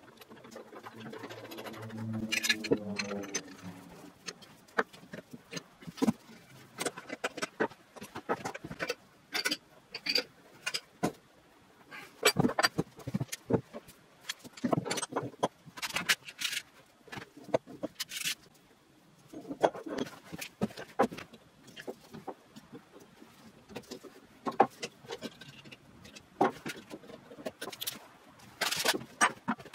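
Parts of an old 4-inch steel bench vise being handled and set down on a wooden workbench: irregular clanks, knocks and scrapes of metal on metal and wood. In the first few seconds there is a grating, rubbing scrape as the vise body is worked on its swivel base.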